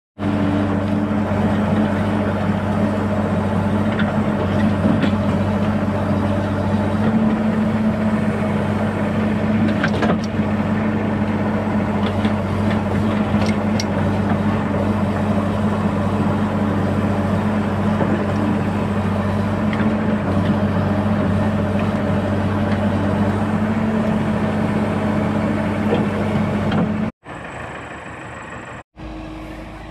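JCB backhoe loader's diesel engine running steadily at working revs while the backhoe digs, with a few faint knocks. Near the end the sound drops abruptly to a quieter, more distant engine sound.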